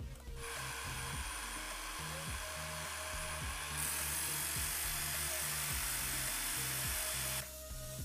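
Drill spinning a sanding drum, with the steel blade of a rusty folding knife pressed against it from about halfway in, adding a louder hissing grind that stops shortly before the end. Background music plays throughout.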